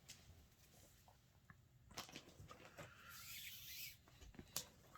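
Near silence with faint rustling and a couple of light clicks as lengths of paracord are handled.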